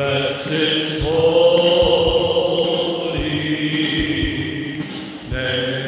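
Worship band music: long held chords over a drum kit's steady beat, with light cymbal ticks.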